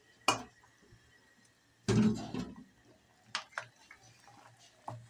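Wooden spoon and bowl knocking and scraping against an aluminium cooking pot as ground spice paste is added to boiling vegetables: a sharp click near the start, a louder clatter about two seconds in, and a few lighter ticks after.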